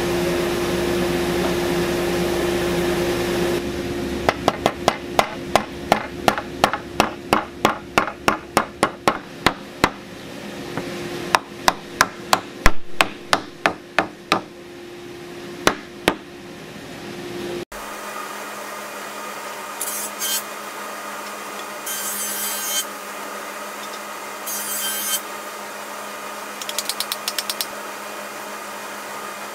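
A steady machine hum, then a long run of hammering on wood, about three blows a second, thinning into fewer, harder blows. After that comes a quieter hum with a few short scraping strokes.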